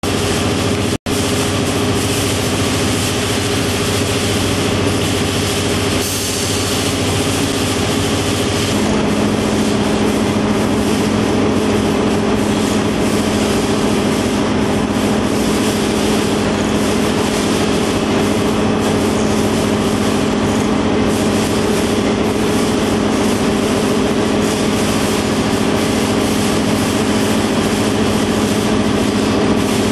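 Conveyors and feeders of a green chili pepper vision-sorting line running: a loud, steady machine hum over a noisy whir. About nine seconds in, a deeper steady hum joins and holds.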